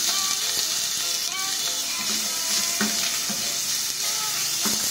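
Pork strips, garlic, onion and ginger sizzling as they fry in hot oil in a stainless steel pan. A slotted spatula stirs them, with a few short scrapes or taps against the pan.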